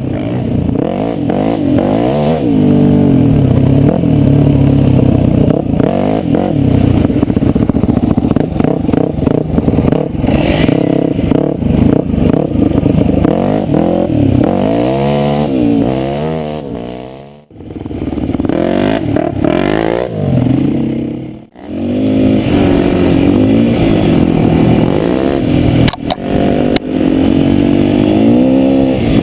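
Four-stroke single-cylinder dirt bike engine being ridden, revving up and down with the throttle and gear changes. The sound drops out briefly twice, a little past halfway.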